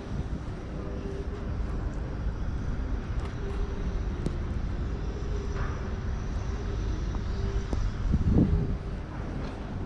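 Outdoor city street ambience: a steady low rumble of vehicle traffic with a sustained hum, swelling briefly louder about eight seconds in.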